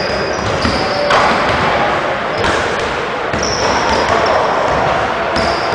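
A basketball bouncing on a hardwood gym floor amid the steady, echoing noise of a large gym, with a few short high squeaks.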